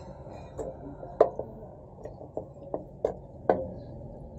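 Peeled mango slices dropping and sliding into an empty plastic blender jug: a run of about eight irregular thuds and knocks, the loudest a little over a second in and about three and a half seconds in.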